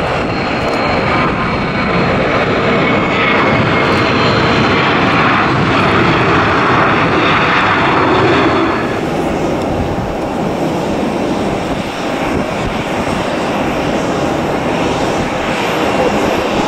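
Boeing 737-800's twin CFM56-7B jet engines at takeoff thrust during the takeoff roll and lift-off: a loud, steady engine noise with a thin high whine. About nine seconds in, the sound changes abruptly to a slightly quieter, steady jet noise.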